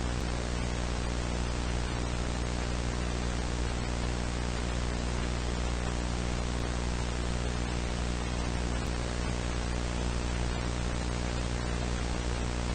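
Steady static hiss over a low electrical buzzing hum.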